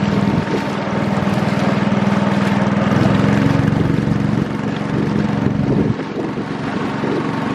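Longtail boat engine running steadily under way. It runs harder for a few seconds in the middle, then eases off about six seconds in.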